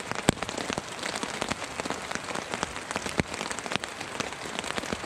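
Raindrops tapping irregularly on the tarp overhead, over a steady hiss of rain.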